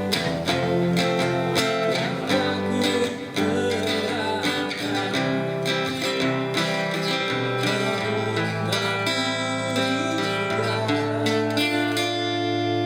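Acoustic band playing an instrumental passage of a song, carried by strummed acoustic guitar.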